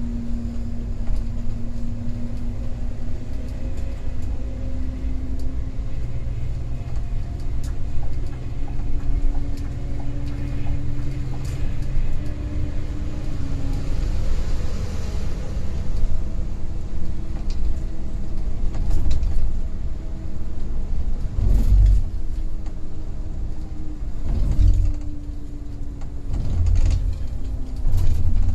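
Scania coach running at highway speed: a steady engine drone whose pitch drifts slowly up and down over a low road rumble, with a few heavy thuds from bumps in the second half.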